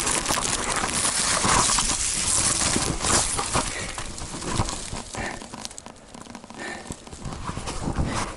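Footsteps and rustling of someone climbing a steep rocky, leaf-strewn path on foot, with crunching and small knocks. It is loud for the first few seconds and quieter after about four seconds.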